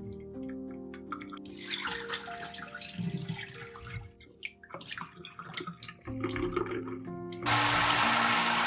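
Rice being washed by hand in a glass bowl of water, the grains swished and splashed. Near the end a kitchen tap runs hard into the bowl, a steady rush that is the loudest sound.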